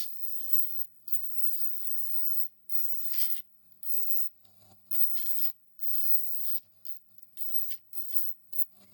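Hand-worked abrasive rubbing: about a dozen irregular back-and-forth scraping strokes, some short and some about a second long, with brief pauses between them.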